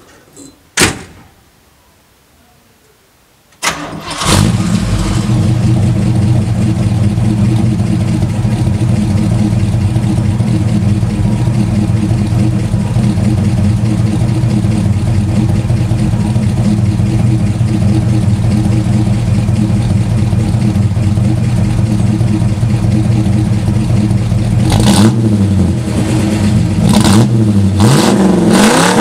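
A car door slams shut about a second in. About four seconds in, a 1967 Chevrolet Impala's V8 cranks briefly and catches, then idles steadily. Near the end it is blipped several times, the revs rising and falling.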